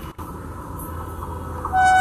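WAP7 electric locomotive horn starting near the end, a loud steady tone, over the low steady running noise of the approaching train.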